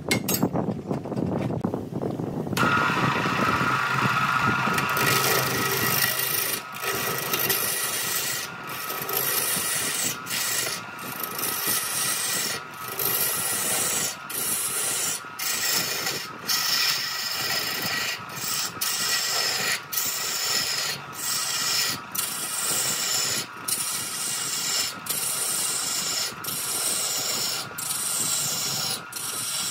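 Wood lathe running with a steady whine while a tool or abrasive rubs against the spinning wood. From a few seconds in it goes in repeated strokes about once a second, each broken by a short gap.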